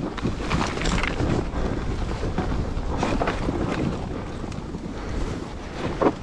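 Dirt bike engine running as it climbs a hill, with wind buffeting the microphone.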